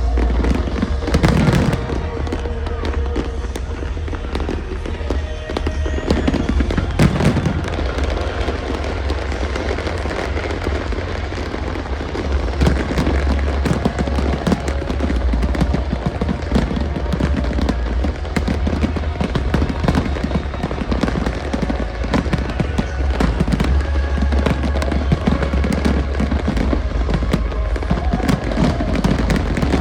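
Fireworks display: a continual run of crackling and popping bursts over deep booms, with two bigger bangs about a second in and around seven seconds in. Music plays along with the show.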